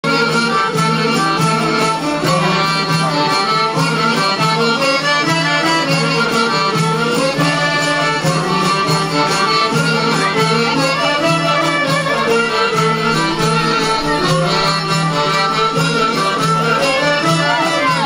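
Albanian folk ensemble playing a traditional tune on violin, accordion, long-necked lute and frame drum, continuously and without a break.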